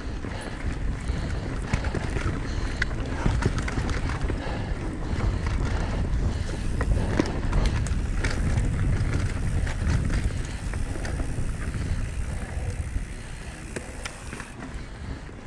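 Mountain bike riding dirt singletrack: wind buffeting the microphone over the tyres rolling on dirt, with many scattered clicks and rattles from the bike over the rough ground. The rumble eases a little near the end.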